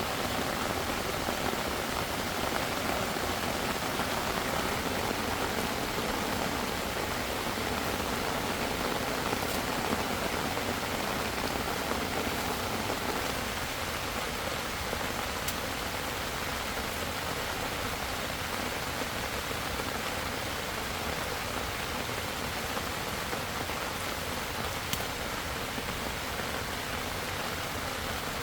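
Heavy rain falling steadily, a dense even hiss of drops, easing a little about halfway through.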